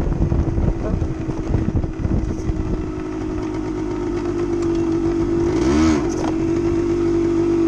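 Suzuki TSR trail motorcycle's engine running while riding a dirt track. It is uneven and choppy for the first couple of seconds, then settles into a steady drone that slowly grows louder, with a quick dip and rise in pitch about six seconds in.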